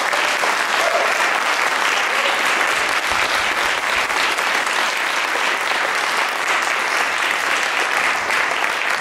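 Audience applauding steadily, a dense patter of many hands clapping at the end of a poetry reading.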